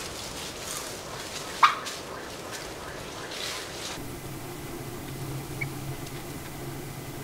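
Gould's wild turkeys in the open: one short, sharp turkey call about one and a half seconds in, over a low hiss with a few brief rustles. Partway through, the sound changes to a steady low hum with a couple of faint high chirps.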